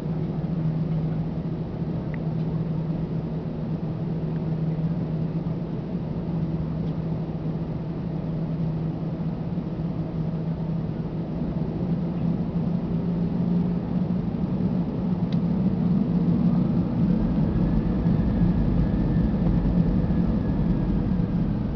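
Airliner engines running with a steady low drone; about sixteen seconds in, a whine rises and holds while the drone grows louder.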